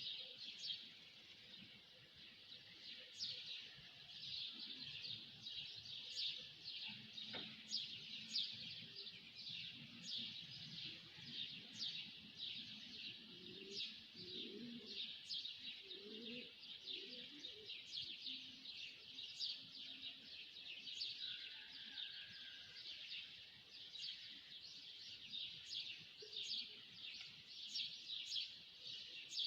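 Many small birds chirping together in a continuous chorus: a dense stream of short, high chirps overlapping without pause.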